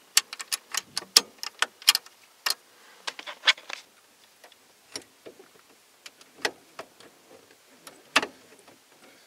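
Sharp clicks and clacks of metal parts being handled and fitted together in a Ford F-150's steering column: a quick irregular run of clicks over the first few seconds, then a few scattered ones.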